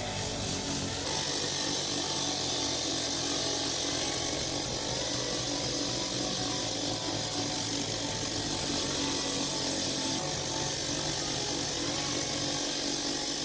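Bench grinder running with rusty iron held against its spinning wheel, scouring off the rust with a steady, high scratchy hiss.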